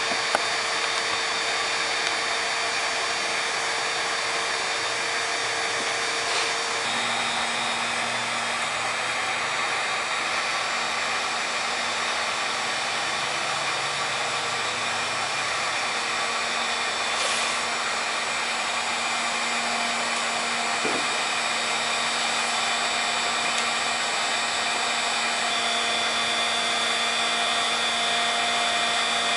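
A 1500-watt heat gun running steadily: a constant rush of blown air with a motor hum that drops to a lower pitch about seven seconds in.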